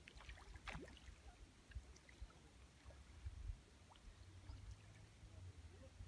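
Near silence: calm estuary water lapping faintly, with an uneven low rumble underneath.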